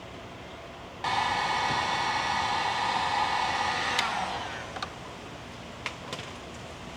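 Electric heat gun switched on to shrink heat-shrink tubing over a crimped wire joint, blowing steadily for about three seconds, then switched off and winding down. A few light clicks follow.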